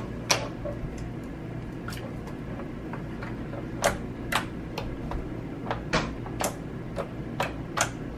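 Orange sherbet slime being pressed and poked with fingers, giving short, sharp clicks and pops at irregular intervals, roughly two a second, over a steady low hum.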